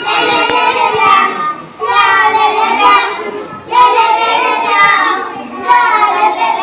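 Young children singing an action song together into a microphone, in short phrases of about two seconds with brief pauses between them.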